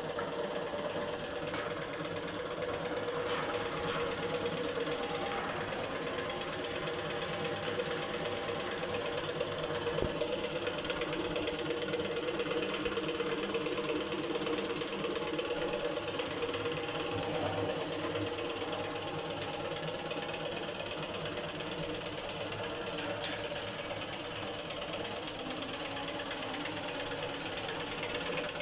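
Steady machine noise: a continuous hum with a hiss over it, unchanging in level.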